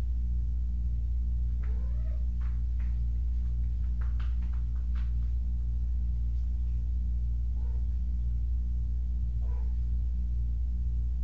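A cat meowing briefly: a short rising call about two seconds in, then two fainter calls near the end, with a run of light taps and clicks in between. A steady low hum runs underneath and is the loudest sound throughout.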